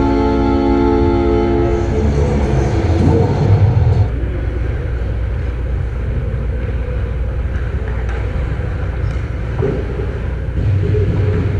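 Ice rink horn sounding one long, steady blast that cuts off about two seconds in, followed by the low rumble of the arena with a few faint knocks.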